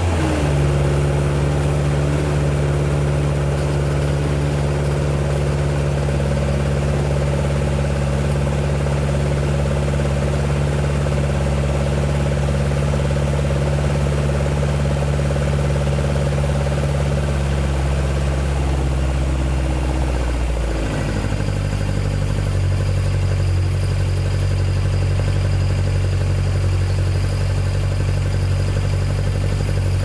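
Toyota AE86's 20-valve (5-valve-per-cylinder) 4A-GE engine idling steadily with the air conditioning running during a test of the repaired system. The idle note shifts about two-thirds of the way through.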